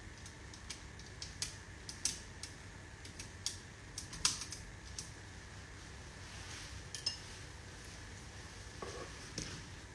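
Irregular light clicks and taps from handling a small food-colouring bottle, the loudest a little past four seconds, over a faint steady low hum.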